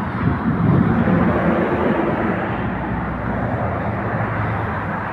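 A motor vehicle passing on a wet road in heavy rain. Its engine rumble and tyre hiss swell over the first two seconds and then ease off, over a steady noise of rain and running water.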